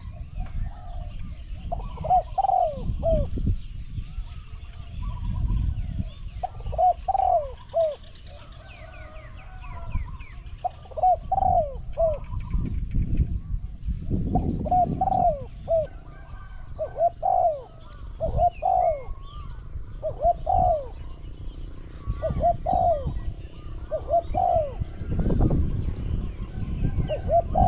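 Spotted dove cooing: short phrases of falling coo notes repeated every couple of seconds. Small birds chirp faintly behind it, and gusts of low rumbling noise come and go.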